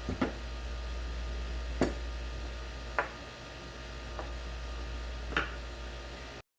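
Hand work on car shifter parts: about five separate sharp clicks and knocks of metal parts and tools, over a steady low hum.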